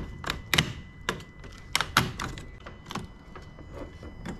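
Spring-loaded metal jumper-cable clamps clicking and knocking as they are clipped onto a truck battery's positive and negative terminals: a string of sharp, irregular clicks and taps.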